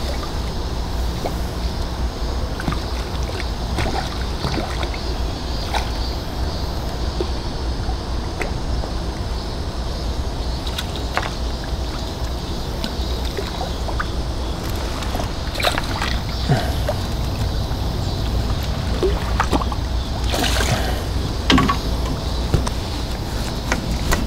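Outdoor pond-side ambience: wind rumbling on the microphone with water lapping and scattered small clicks, and a brief louder rustle or splash near the end.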